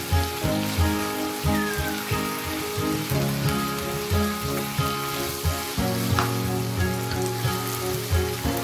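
Background music with a steady beat and held chords, over the hiss of vegetables sizzling as they are stir-fried in a wok.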